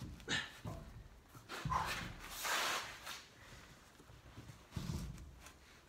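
A spare wheel being lifted and worked onto a truck's hub: a few dull knocks and scrapes of the wheel, and about two seconds in a loud breathy hiss.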